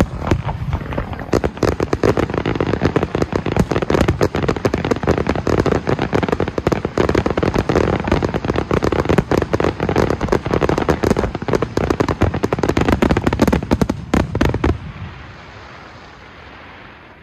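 Fireworks finale barrage: a rapid, dense string of shell bursts and launch bangs with no gaps for about fifteen seconds. Then it stops suddenly and leaves a quieter, fading crackle.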